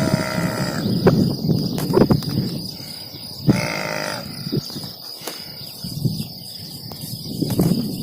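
Cattle mooing: two short calls, one at the start lasting about a second and a shorter one about three and a half seconds in, over a low rumbling background.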